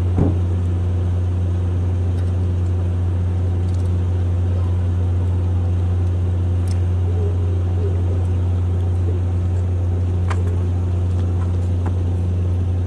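Boat engine running with a steady low drone, with a brief knock just after the start.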